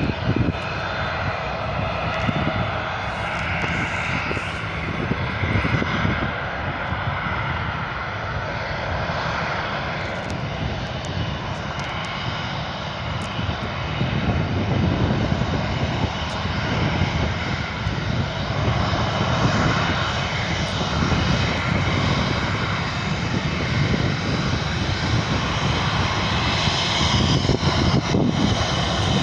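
Jet engines of a Boeing 737-800 (CFM56-7B turbofans) running under power, a loud steady noise with a deeper rumble growing stronger about halfway through.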